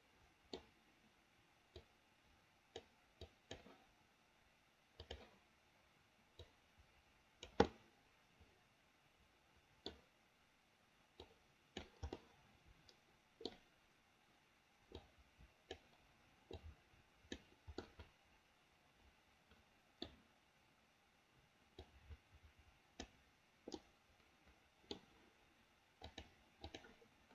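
Faint computer mouse clicks at an irregular pace, with one louder click about seven and a half seconds in.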